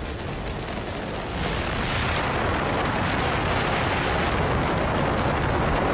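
Wind rushing over the microphone from a moving car, a steady noise that grows louder about a second and a half in.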